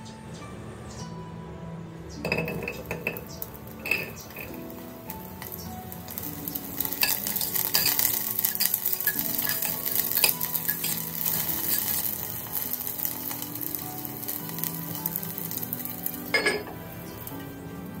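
Garlic, shallots and ginger sizzling in hot oil in a clay casserole pot, with a utensil clinking and scraping against the pot as they are stir-fried. The sizzle grows louder about six seconds in, and near the end a ceramic lid is set on the pot with a single sharp clink.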